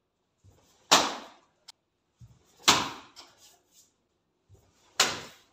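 Three sharp, loud slaps of karate punches hitting a sheet of newspaper hung from a stand, spaced about two seconds apart. Each is led by a soft thud of a bare foot stepping in.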